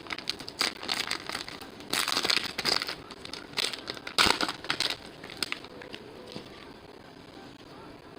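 Crinkling and rustling of a baseball card pack's wrapper and cards being handled, in quick bursts for about five seconds, then dying down.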